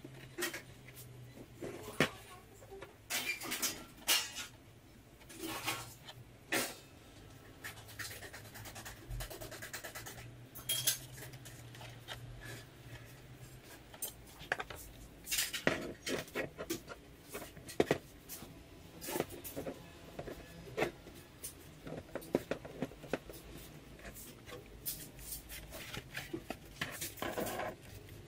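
Handling noises on a workbench: balsa wood sheets and small glue bottles picked up, tapped and set down, with irregular light clicks, knocks and scrapes. A faint low hum runs under the first half and stops about halfway through.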